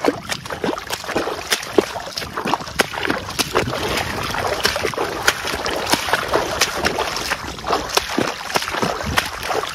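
Footsteps splashing through shallow water in sneakers, one splashing stride about every half second, with water sloshing and spraying between the steps.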